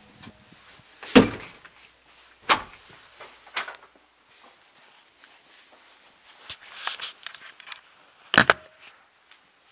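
A house door being handled and shut: a sharp thud about a second in, then scattered knocks and clicks with a short rattle, and a double thump near the end.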